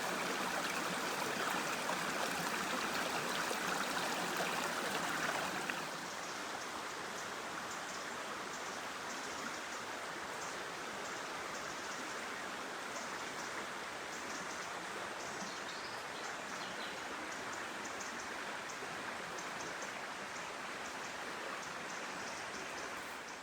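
A river flowing steadily, a continuous rush of water that drops slightly in level about six seconds in.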